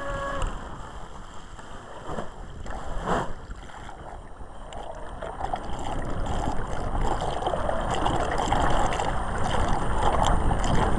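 An RC model boat's electric motor whine cuts off about half a second in. Then water splashes and rushes around the hull, quieter for a few seconds and growing louder again toward the end.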